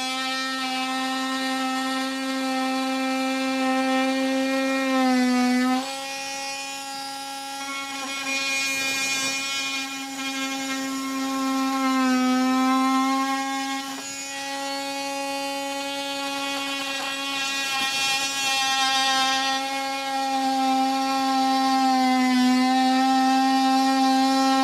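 Wolf A+ 12V cordless combo tool (an oscillating multi-tool) with a wood and soft-metal blade cutting plasterboard. It runs with a steady buzz that dips briefly in pitch three times under load.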